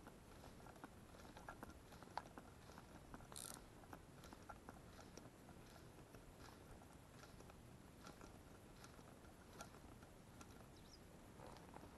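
Near silence with faint, irregular small clicks and one short soft hiss about three and a half seconds in: quiet handling of a fly rod and line.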